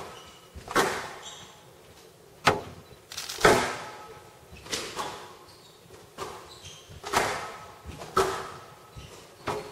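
Squash rally on a glass court: the ball is struck by rackets and smacks off the walls in sharp hits about once a second, each with a short echo. A few brief shoe squeaks on the court floor come between the hits.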